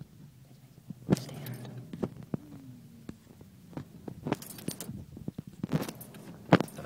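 Scattered sharp clicks and light rattles inside a car cabin over the low, steady hum of the car. The loudest knocks come about a second in and near the end.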